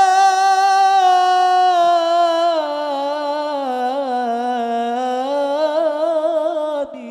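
A young man's solo voice singing one long, unaccompanied melismatic note of a sholawat into a microphone. The pitch holds, then slowly falls with quick vocal ornaments, and breaks off just before the end.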